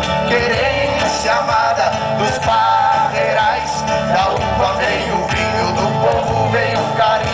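Live amplified music: an acoustic guitar played over male voices singing into microphones.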